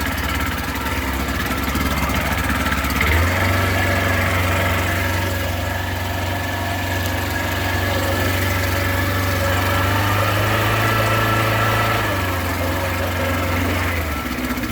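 20-horsepower outboard motor running at idle, pushing a pontoon boat along. Its note steps up a little about three seconds in and drops back near the end.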